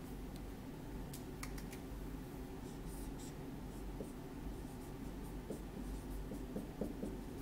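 Dry-erase marker writing on a whiteboard: faint scratching and taps, with short squeaks in the second half, over a steady low room hum.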